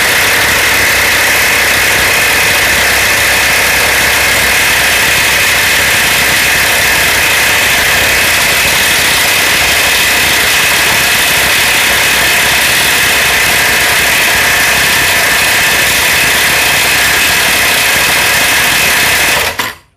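DCK KPB22C corded electric impact wrench hammering continuously under full load on a bolt torqued to 1000 Nm, cutting off just before the end without having broken the bolt loose.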